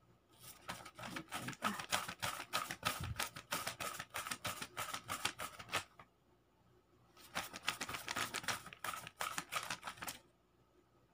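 A wad of paper banknotes flapping and rustling rapidly as it is waved as a hand fan, in two bouts with a short pause a little past the middle.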